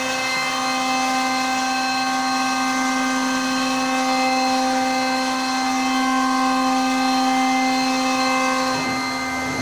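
CNC router spindle running steadily with a constant whine while cutting MDF.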